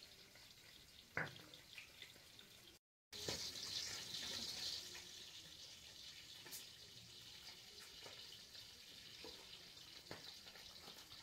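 Faint sizzle of katla fish pieces frying in oil in a wok, with a few light clicks; the sound cuts out completely for a moment about three seconds in.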